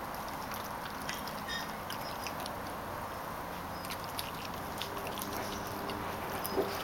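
Yellow Labrador puppy gnawing and chewing a raw chicken leg, with scattered small clicks and crunches of teeth on meat and bone over steady outdoor background noise.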